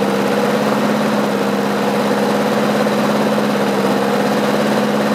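Small single-cylinder Briggs and Stratton Quantum lawn mower engine running at a steady speed.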